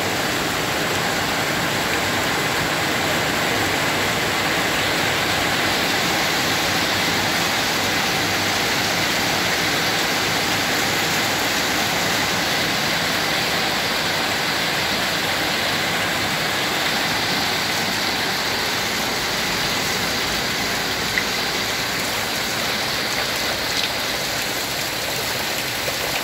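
Heavy rain falling steadily on broad tropical leaves and a garden pond, a dense even hiss of drops. Near the end a couple of sharper single drips stand out.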